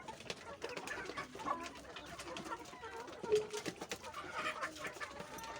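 A flock of chickens clucking, many short overlapping calls.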